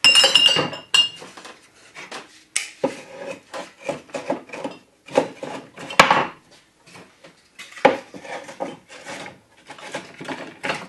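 Empty glass wine bottles clinking as they are set into a wooden carrier, then an irregular run of knocks and scrapes as wooden spacers are pushed down between the bottles, wood against glass and wood. A ringing glass clink comes at the start, and a sharp knock about six seconds in is the loudest.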